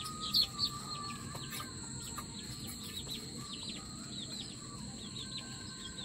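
Chicks peeping in many short, repeated falling chirps, over the steady high drone of crickets.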